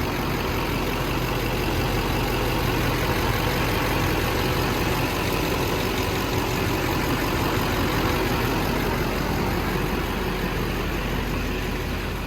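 2006 Duramax LBZ 6.6-litre V8 turbo-diesel engine idling steadily, purring like a kitty, growing a little fainter near the end.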